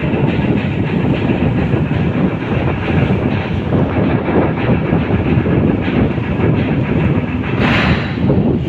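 Steady, loud rumble of the ro-ro ferry KMP Sebuku's engines and churning propeller wash as it manoeuvres to berth, with a short hiss about eight seconds in.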